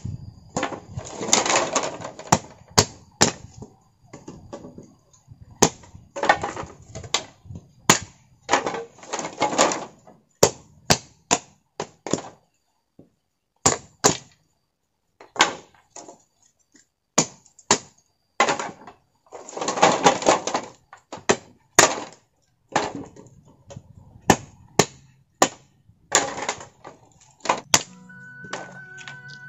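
Hand clearing work: irregular sharp chops and whacks, with longer rustling, scraping bursts between them as material is cut back and cleared.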